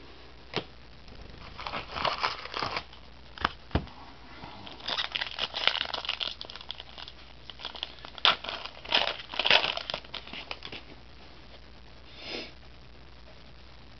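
Trading card pack wrapper being torn open and crumpled, with the cards handled, in irregular rustling bursts and a few sharp clicks.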